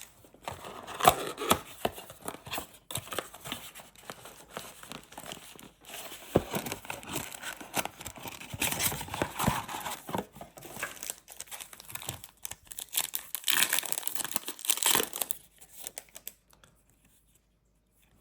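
Plastic wrapping crinkling and tearing as a trading-card blaster box and its card packs are torn open, in irregular handfuls of crackle that stop about two seconds before the end.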